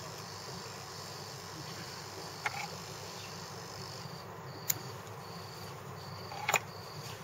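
A cricket chirping in the background: a thin high tone, steady at first, then pulsing about twice a second from around the middle. Three light clicks from the tying work at the vise break over it, the sharpest about two thirds of the way through.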